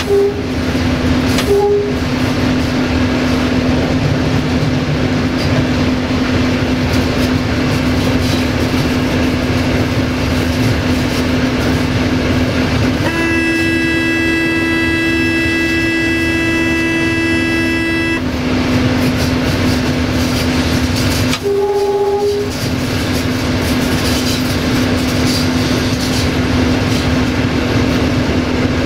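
LDE2100 (060-DA) diesel-electric locomotive under way, its Sulzer diesel engine holding a steady drone over wheel-and-rail rumble. The horn gives a short toot about two seconds in, one long blast of about five seconds in the middle, and another short toot about three-quarters of the way through.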